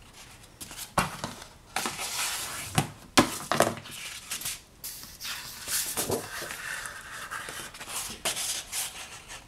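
Sheets of black Stonehenge paper rustling, sliding and scraping as they are picked up, folded in half and pressed flat into folios, in a series of short irregular swishes.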